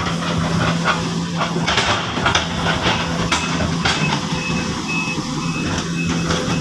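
Sumitomo SH-200 hydraulic excavator working: its diesel engine running with a steady hum, with repeated clanks and knocks from the machine, and a high repeating beep in the second half.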